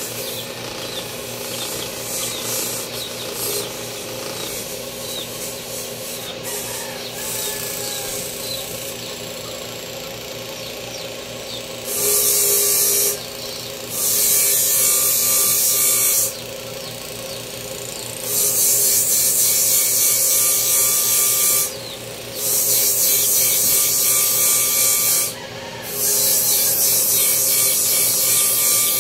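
A small power tool runs with a steady hum. In the second half, a workpiece is pressed to it five times, each time giving a loud hissing grind of one to four seconds that starts and stops abruptly. Faint bird chirps come through in the first half.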